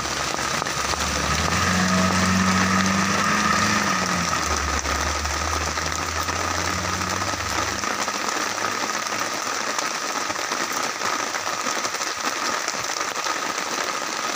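Heavy rain falling on a wet asphalt road, a steady hiss. Under it a Suzuki van's engine hums as it pulls past and away, dying out about halfway through.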